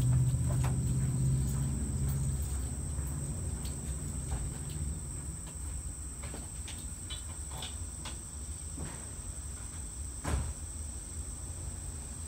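Steady high-pitched chirring of insects, with a low hum that fades out over the first few seconds and scattered light knocks, the loudest about ten seconds in.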